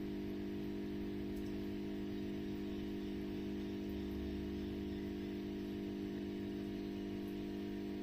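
Steady electrical hum from aquarium equipment: several low tones held without change, over a faint hiss.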